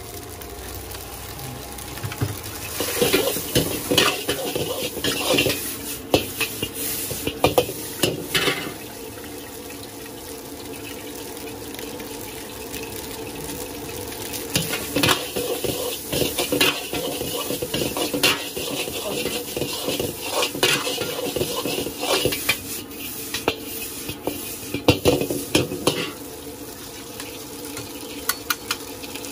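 Steel ladle scraping and knocking against an iron kadai as rice is stir-fried, in three spells of quick strokes with quieter stretches between, over a low steady sizzle.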